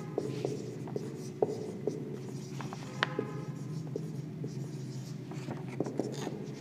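Marker pen writing on a whiteboard: scratchy strokes and short ticks of the tip against the board, over a steady low hum.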